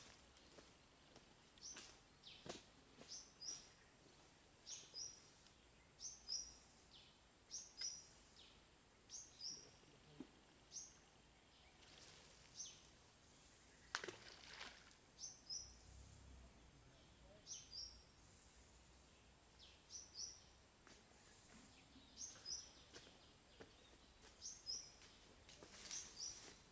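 Faint outdoor quiet with a bird repeating a short, high two-note chirp about once a second, over a steady faint high tone. A few soft clicks, one sharper click about halfway through.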